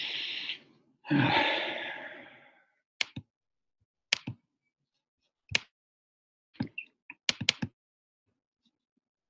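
A person breathing out heavily on the microphone twice, the second breath longer and louder. Then about a dozen short clicks from working the computer, with a quick cluster about seven seconds in.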